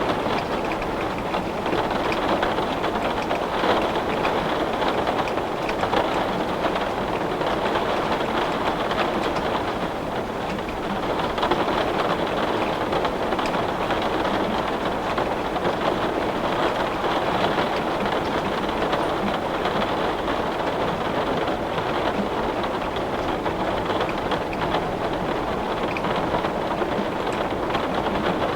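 Heavy rain beating steadily on a window, a dense even patter with scattered sharper drop ticks.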